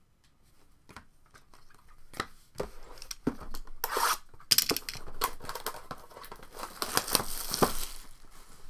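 A trading-card pack wrapper being torn open and crinkled by hand, with small clicks of cards being handled; the rustling grows louder a few seconds in and is strongest in the second half.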